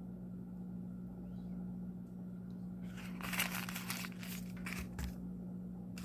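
Crinkling and rustling for about two seconds near the middle, over a steady low hum.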